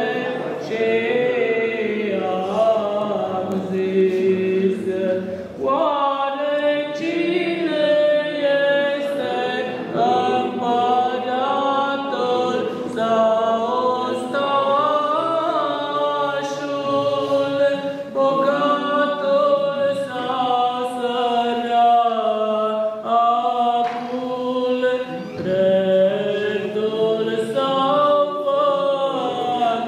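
Unaccompanied Orthodox funeral chant sung by several voices, going on without a break in long held, winding melodic lines.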